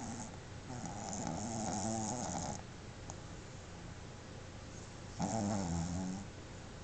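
Boston terrier snoring in deep sleep: two long snores, the first lasting about two seconds and the second about a second, some three seconds apart.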